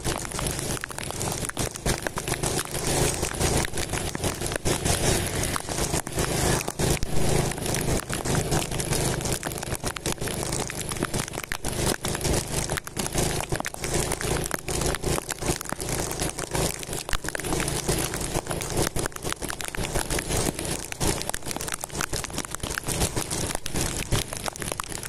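Rain and wind hitting the microphone of a handlebar-mounted camera on a moving motorcycle: a dense, steady crackle, with the motorcycle's engine faintly underneath.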